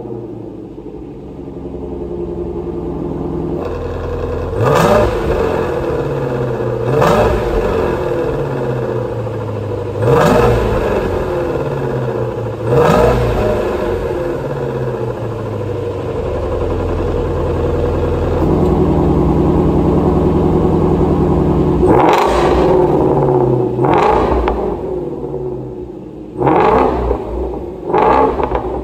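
Ford Mustang Shelby GT350's 5.2-litre naturally aspirated flat-plane-crank V8, heard from behind its quad exhaust, idling and revved in a string of sharp throttle blips every two to three seconds. About two-thirds through, the revs are held up steadily for three or four seconds, then more blips follow near the end.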